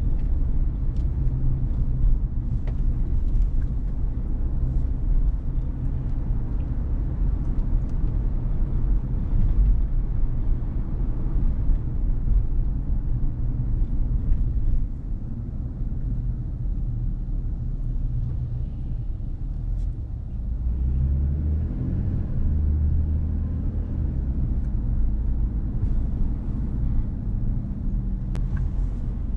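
Car driving: a low, steady rumble of road and engine noise. It eases a little about halfway through and settles into a steadier low hum for the last several seconds.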